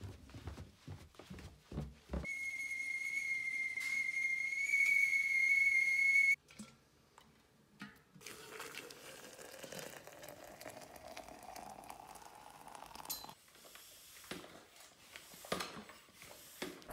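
A kettle whistling one steady high note for about four seconds, then cutting off suddenly. After it, hot water poured into a cafetière, its pitch slowly rising as it fills, and near the end a few strokes of a floor pump inflating a bicycle tyre.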